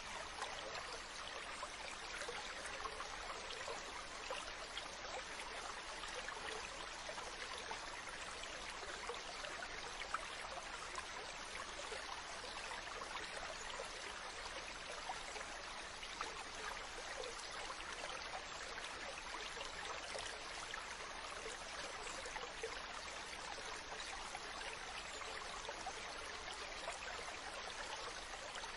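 Steady running water with many fine splashes and drips, holding an even level throughout.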